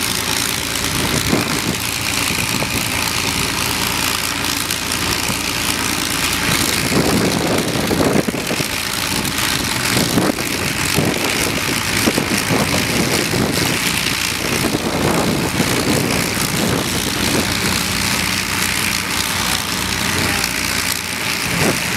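A Rolls-Royce Merlin V12 engine of an Avro Lancaster bomber running at idle, propeller turning, as a steady heavy drone.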